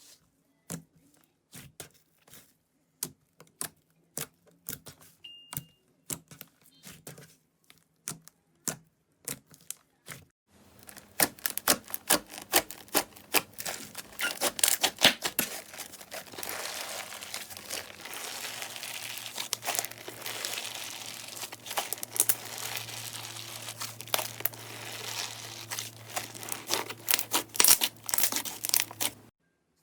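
Slime being squeezed and pressed by hand, giving sharp crackling pops. The pops are sparse at first, then turn dense and continuous about ten seconds in, until the sound cuts off just before the end.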